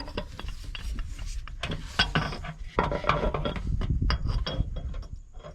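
Metal parts clinking and scraping, with many small sharp clicks and rubbing, as the drive coupling is handled and fitted on the tractor's rear pinion shaft.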